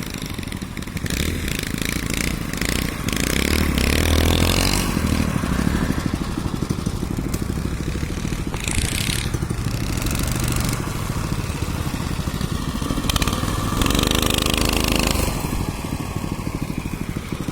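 A vehicle's engine running under load and revving hard in surges, about 3 to 5 seconds in and again near the end, as it is driven through a creek. A short hissing, splashy scrape comes about halfway through.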